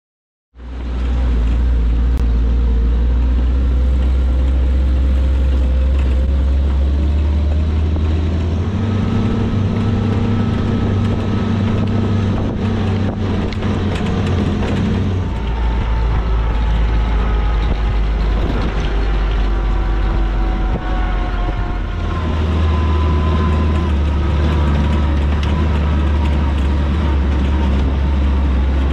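Willys flat fender Jeep's four-cylinder engine running as it is driven along a trail, a steady low rumble that changes pitch about 8 seconds in, again at about 15 seconds and at about 22 seconds, as the revs or gear change.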